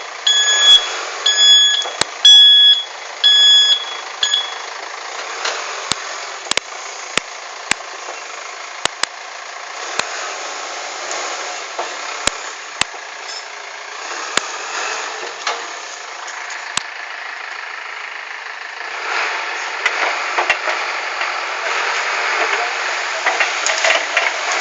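CAT 424B backhoe loader's reversing alarm beeping in a regular on-off pattern for the first four seconds, over the working machine. After that the machine runs on without the alarm, with scattered sharp clicks and knocks, and gets louder near the end.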